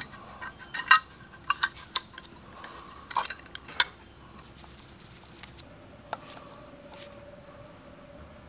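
Light metal clicks and clinks as small parts of a carburetor are handled with a pick and the float is lifted out of the float bowl. The ticks come thick in the first few seconds and then thin out, while a faint steady hum sets in about halfway through.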